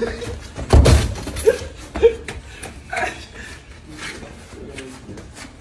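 A football being kicked about on artificial turf: one loud thud of the ball about a second in, then a few lighter knocks.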